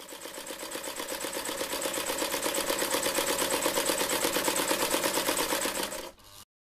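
Film projector sound effect: a fast, even mechanical rattle that grows louder over the first couple of seconds, holds steady, and stops abruptly near the end.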